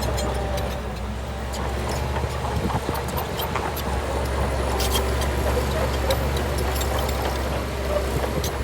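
Heavy diesel engine of a Shantui bulldozer running steadily, with scattered metallic clicks and clanks over its low hum.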